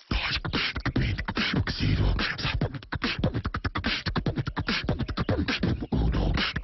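Human beatboxing, a voice-over dubbed onto the chipmunk: fast percussive mouth sounds, kick-drum thumps, clicks and hissing snares, many strokes a second.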